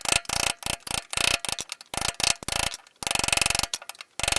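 Pneumatic air hammer firing in short rapid bursts, with one longer burst about three seconds in, driving the rubber-and-metal silent-block bushings ("ромашки") out of a VAZ-2111 lower control arm.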